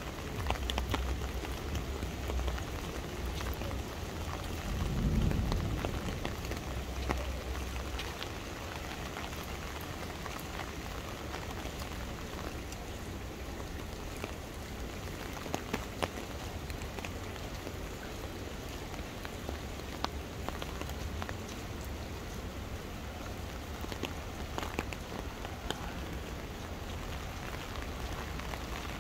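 Rain falling steadily, with scattered sharp drop impacts close by and a low rumble that swells briefly about five seconds in.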